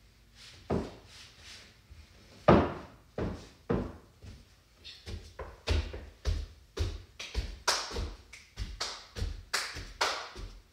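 A series of thumps and knocks, a few scattered at first, then coming quicker at about two to three a second from about five seconds in.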